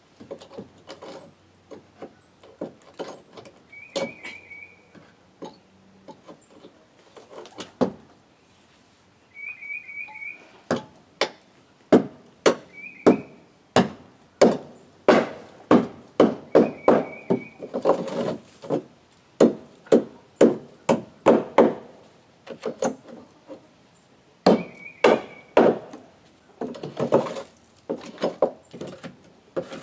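Hammer blows on wooden porch decking, scattered at first and then in quick runs of two to three strikes a second, as boards are knocked loose or nailed down.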